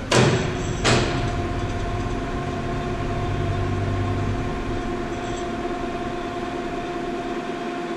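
Two sharp metal clanks with ringing, right at the start and about a second later, from the suspended steel rotary table and its crane chain rigging. A steady machine hum with a high whine runs on after them.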